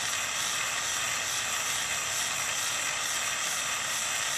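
Jeweller's gas soldering torch burning with a neutral flame, a steady hiss as it heats a fluxed copper sheet.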